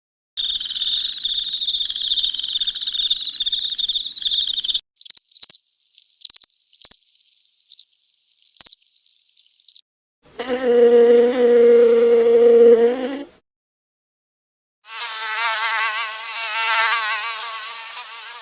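A run of separate animal sounds: a steady, pulsing, high insect buzz for about four seconds, then a series of short high chirps. After that come two longer pitched animal calls, the last one higher and wavering.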